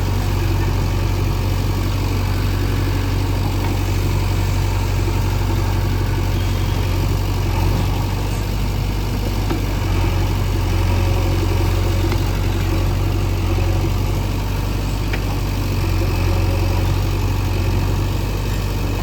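JCB 3DX backhoe loader's diesel engine running steadily with a low, even drone, its level rising and falling slightly now and then.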